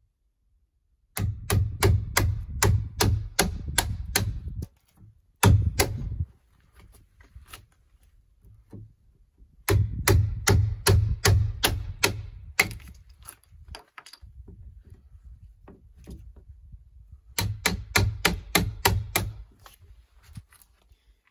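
Steel chisel being driven into a log post with a hammer, cutting out a notch, in three or four quick runs of sharp knocks about three a second with short pauses between.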